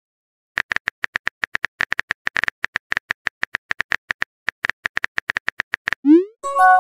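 Typing sound effect of a phone chat keyboard: a long run of short taps, several a second, as a message is keyed in letter by letter. Near the end the taps stop and a rising whoosh and a short tone mark the message being sent.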